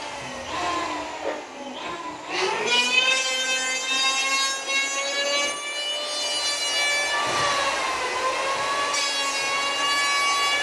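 Electric hand planer running and shaving the surface of a reclaimed pallet plank: a steady motor whine that rises in pitch about two seconds in, then holds, sagging briefly about seven seconds in.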